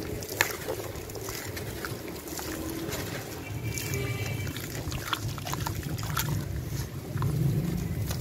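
A wet sand-cement chunk being squeezed and crumbled by hand in a tub of water: gritty crumbling with splashing and dripping, and scattered small crackles. A steady low rumble runs underneath and grows a little louder near the end.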